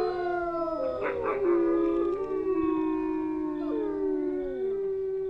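Several dogs howling together in long, overlapping, wavering howls at different pitches, one sliding down near the end.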